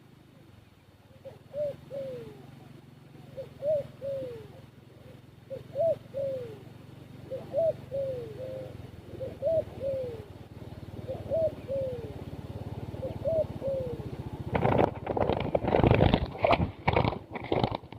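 A dove cooing in a repeated phrase of short arching notes, about one phrase every two seconds. Near the end a louder burst of rustling and knocking cuts in.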